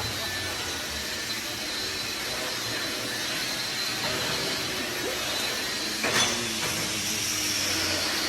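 Steady hissing noise with a faint low hum, like a machine or air running, and one short knock about six seconds in.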